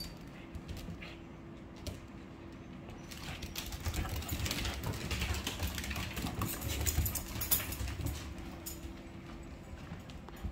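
Several small dogs' claws clicking and pattering on a hardwood floor as they move about, busiest in the middle few seconds, over a faint steady hum.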